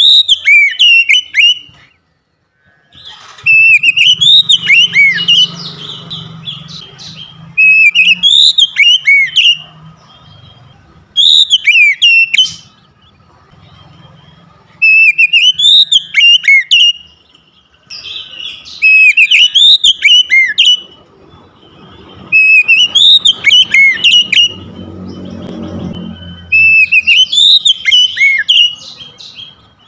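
Male Oriental magpie-robin singing in full voice: eight loud phrases of rapid, sweeping whistled notes, each a second or two long and coming about every three to four seconds. A faint low hum comes and goes behind the song.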